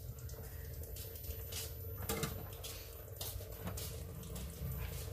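Faint scattered clicks and light taps over a steady low hum and rumble of background noise.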